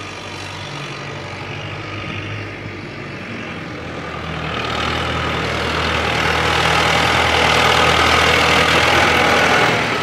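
Kubota tractor's diesel engine running, getting steadily louder over the last half as the tractor drives closer.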